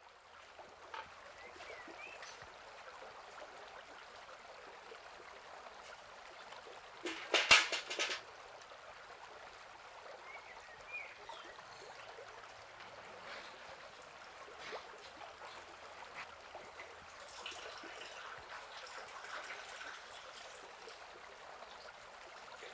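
Water trickling and dribbling into a bucket, with a brief loud clatter about seven seconds in.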